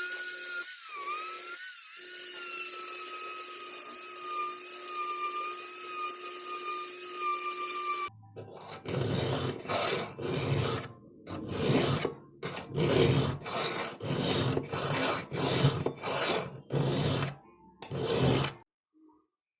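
A power grinder runs against steel for about eight seconds, its whine sagging slightly under load, then stops abruptly. It is followed by about thirteen steady back-and-forth strokes of a hand file on metal, a little under one per second.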